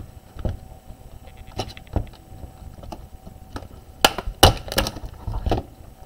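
Sharp plastic clicks and snaps as the keyboard deck of a Lenovo 100e Chromebook is pried loose from its bottom case: a few scattered clicks, then a cluster of louder snaps between about four and five and a half seconds in.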